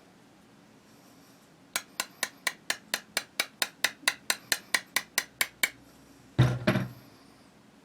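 A small hammer tapping a roll pin into a rifle bolt to retain the firing pin: a steady run of about eighteen quick, light metallic taps over some four seconds, then two louder knocks close together near the end.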